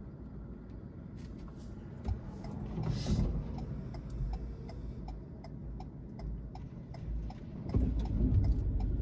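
Car interior on a wet road: the turn-signal indicator ticks evenly about twice a second over the low rumble of engine and tyres. There is a brief hiss about three seconds in, and the rumble grows louder near the end as the car speeds up.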